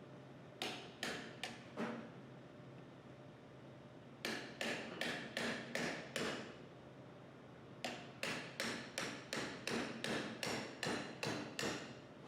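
Hammer striking a pry bar to pop expansion plugs out of a 400 series pump housing, in three runs of blows: three strikes, then about six, then about a dozen at roughly three a second.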